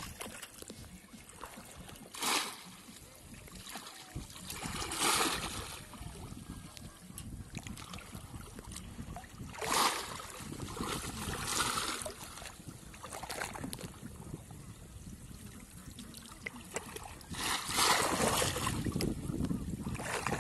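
Shallow water splashing and sloshing as bamboo polo fish traps are thrust down into it and waders move through it. The splashes come in several separate bursts, the longest near the end.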